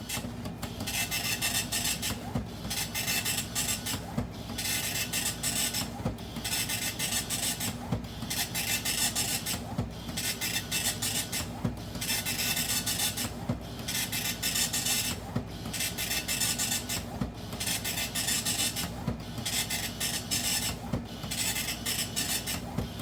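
Radio Shack DMP-110 dot-matrix printer printing a directory listing line by line: a rasping buzz from the print head in a dozen or so bursts of about a second each, with short pauses between the lines.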